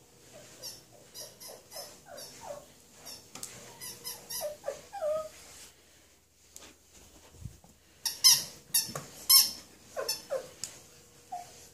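A rubber squeaker toy squeezed over and over in a small dog's jaws as it chews and carries it: a run of short, sharp squeaks, some falling in pitch. The squeaks pause briefly past the middle, then come loudest and thickest just after.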